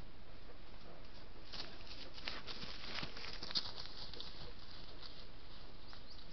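Bull elk moving through brush right by the camera: a cluster of rustles and clicks over about two seconds, with one sharp tick a little past halfway, over the trail camera's steady hiss.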